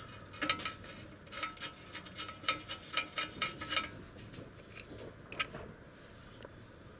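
Ratchet wrench clicking in short, uneven runs while bolts are run in on an ATV engine case. The clicking thins out about four seconds in and stops before the end.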